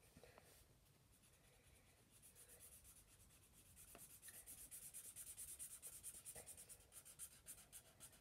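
A pen scribbling on paper, faint and scratchy, in quick back-and-forth strokes as a drawing is coloured in; the scribbling starts about two seconds in and gets busier.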